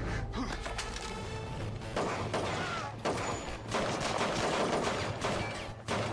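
Tense film score with a low steady drone, then sustained bursts of gunfire from about two seconds in.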